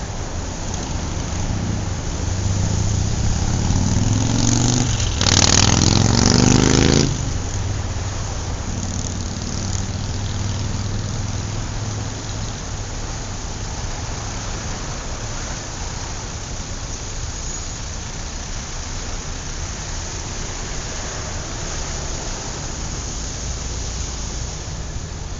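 City street traffic: a steady rumble of engines and tyres. A few seconds in, one vehicle's engine rises in pitch, then a loud rushing noise lasts about two seconds and stops suddenly.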